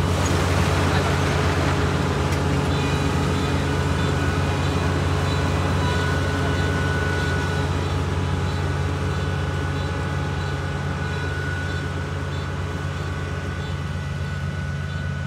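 Kubota ER448 four-row, 48-horsepower combine harvester running steadily as it cuts rice, a deep engine drone with a steady high whine over it. The sound grows gradually fainter as the machine moves away.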